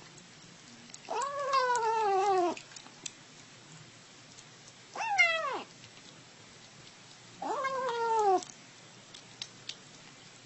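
Domestic cat meowing three times: drawn-out meows that rise briefly and then fall in pitch, the middle one shorter and higher than the other two.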